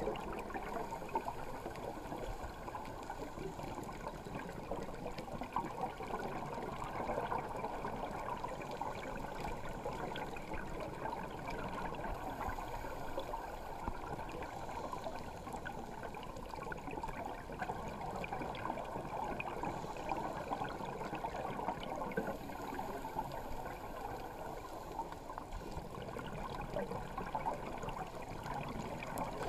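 Underwater ambience picked up by a GoPro Hero3 inside its waterproof housing: a steady, muffled rushing noise with a fine crackle running through it.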